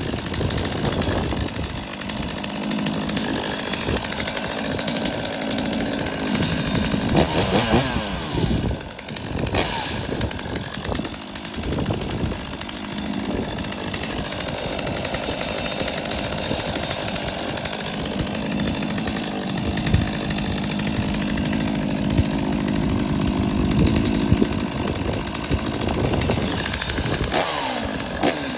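Stihl MS250 two-stroke chainsaw running, its engine speed rising and falling several times, with rising whines about eight seconds in and again near the end.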